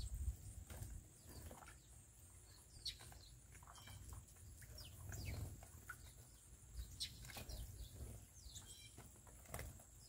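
Faint, scattered short chirps of house sparrows over a low rumble.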